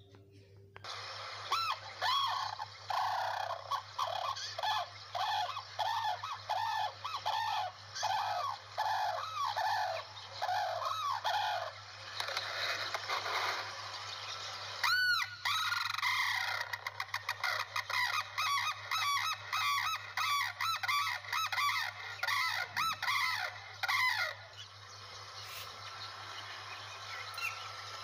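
Sarus cranes calling: a run of repeated trumpeting calls, about two a second, with one louder call about fifteen seconds in, then a second, faster run of calls that dies away near the end.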